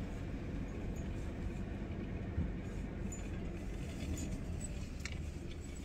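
Steady engine and road rumble of a moving vehicle, heard from inside the cabin, with a faint knock about two and a half seconds in.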